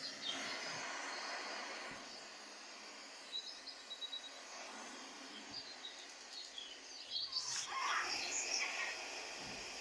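Birds chirping over a steady background hiss of outdoor ambience, with a burst of louder chirps near the end.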